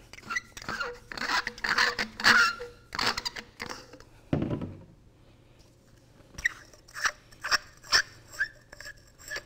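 Metal smooth-bore nozzle tips being unscrewed and handled: scraping and clinking, then a single thump about four seconds in. A run of short clicks follows near the end.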